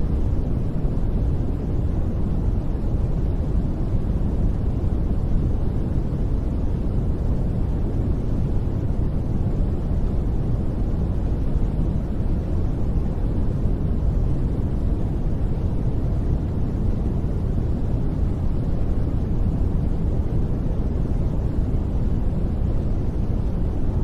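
Steady, deep rushing noise of the kind played as baby-sleep white noise, with most of its weight low down, little hiss on top, and no change throughout.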